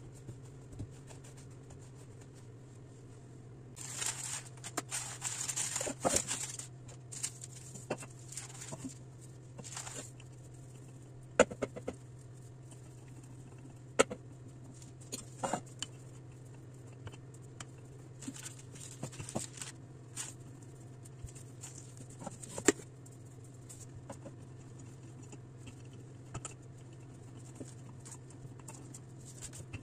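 Baking paper rustling and crinkling for a few seconds, then a wooden rolling pin rolling out dough on it, with scattered scraping and a few sharp knocks of the pin. A steady low hum runs underneath.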